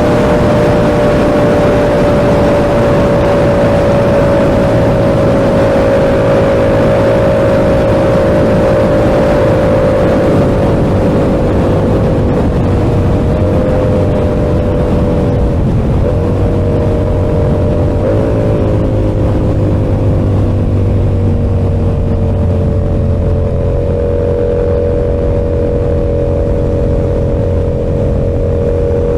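Yamaha R7's 689 cc parallel-twin engine through an SC-Project exhaust, running at steady revs while riding. The revs ease down slowly around the middle with two brief blips, then hold steady again near the end.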